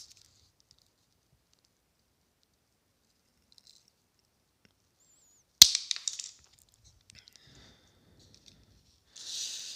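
Flush cutters snapping through a plastic female pin header: a single sharp crack about halfway through, followed by a few faint handling noises.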